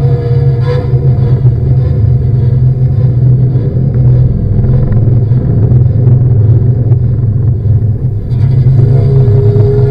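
Improvised noise music: a loud, steady low droning rumble with a dense, rough texture, and a fainter held tone above it near the start and again near the end.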